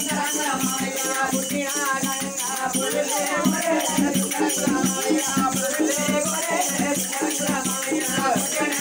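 Oggu Katha folk music: a drum and jingling hand percussion keep a fast, steady beat, with singing voices over it.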